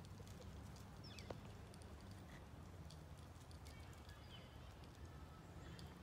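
Quiet park ambience, close to silence: a steady low rumble with a few faint, short, high bird chirps.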